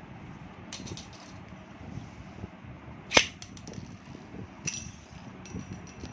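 Sharp clacks of metal Beyblade spinning tops knocking against the plastic stadium and the hard floor: a few separate hits, one much louder about three seconds in. A faint high whine starts near the end.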